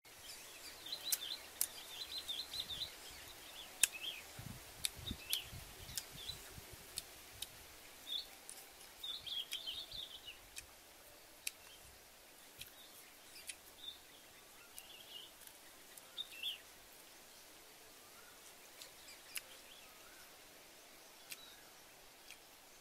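Small birds chirping on and off, mostly in the first half, with scattered sharp clicks throughout and a few soft low thumps about four to six seconds in.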